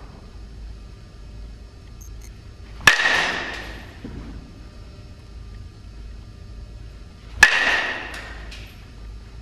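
Metal baseball bat striking a baseball twice, about four and a half seconds apart; each hit is a sharp ping that rings on for about a second.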